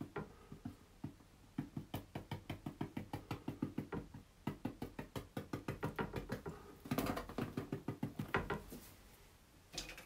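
Small paintbrush dabbing against a painting on an easel: quick, even taps, several a second, in three runs with short pauses between.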